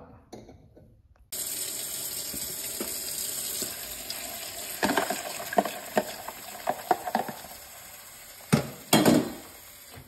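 Kitchen mixer tap running into a plastic tub of cleaning solution, starting suddenly about a second in, while a hand works in the tub. A few short knocks and clatters come midway, and two louder knocks come near the end.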